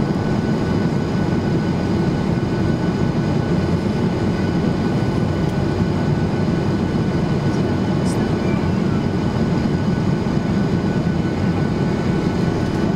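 Steady cabin noise of a Boeing 737-800 in flight: the rumble of its CFM56 engines and the rush of air along the fuselage, heard at a window seat, with a faint steady high whine above it.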